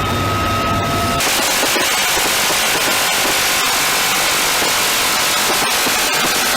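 A steady engine hum with a thin whine, then about a second in an M134 minigun cuts in with a long continuous burst: a dense, unbroken rattle of very rapid shots.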